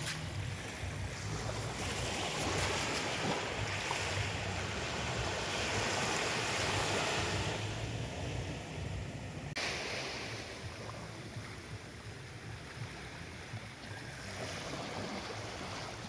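Small sea waves washing up a sandy shore, with wind on the microphone. The wash swells for several seconds, then drops off suddenly a little past halfway and stays quieter.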